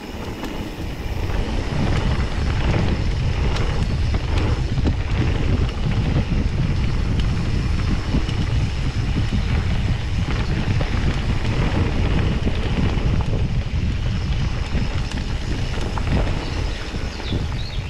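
Wind buffeting the microphone of a camera on a mountain bike descending a dirt flow trail at speed, louder once the bike picks up pace about two seconds in. The tyres roll over dirt and stones, with scattered knocks and rattles from the bike.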